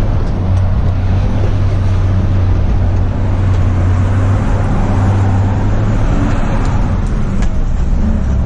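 Truck's diesel engine running steadily while driving, heard inside the cab as a low, even drone under road noise.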